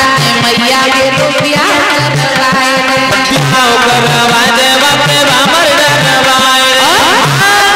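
Devotional bhajan music: a harmonium holds the melody over a steady dholak beat of about two strokes a second, with a voice sliding between notes now and then.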